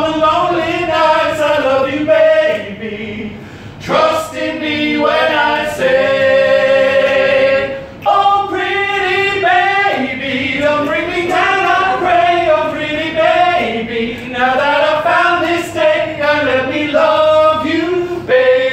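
A small group of male singers singing a cappella in close harmony, with one long held chord about six seconds in.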